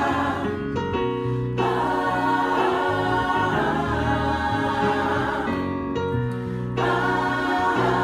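Gospel choir singing in close harmony, with a low bass line under the voices and brief pauses between phrases.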